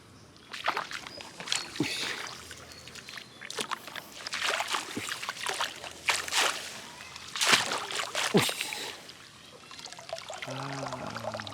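Shallow field water splashing and sloshing in irregular bursts as someone searches through it for crabs.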